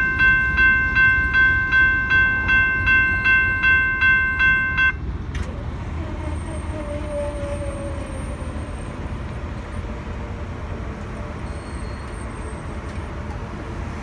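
Railroad grade-crossing warning bell ringing about three strokes a second, stopping about five seconds in as the train clears the crossing. After it a low steady rumble remains.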